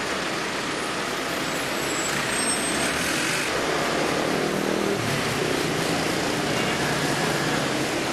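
Steady city street traffic noise: vehicles running past, a constant rumble and hiss that grows a little louder about two seconds in.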